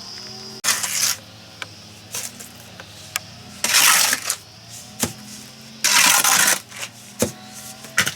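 Three short, rough scrapes, each about half a second, with a few sharp knocks between them, from hand work with tools.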